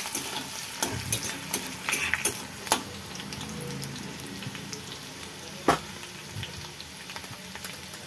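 Crushed garlic and cumin frying in hot oil in a steel kadhai as a tempering, sizzling steadily with a few sharp clicks, stirred with a metal spatula.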